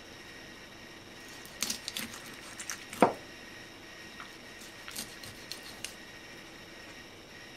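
Kitchen knife cutting into a whole mackerel behind the pectoral fin on a wooden cutting board: a handful of small wet clicks, one louder knock about three seconds in, then a few lighter clicks.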